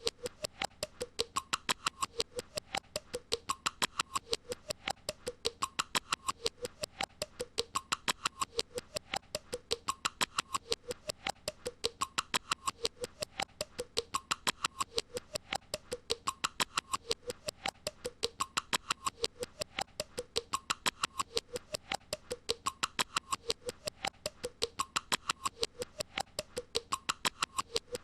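A looped novelty sound effect: rapid, even clicking several times a second with a squeaky tone that swells and fades in a steady repeating cycle.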